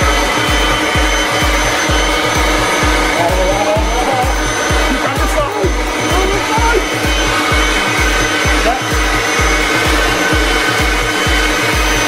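Leaf blower running steadily as it inflates a giant balloon, under background music with a steady low beat of about two and a half beats a second.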